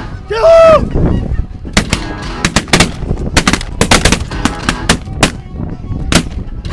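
A loud goose honk about half a second in, then a rapid volley of roughly twenty shotgun blasts from several hunters firing at once, overlapping over about five seconds, with geese honking between shots.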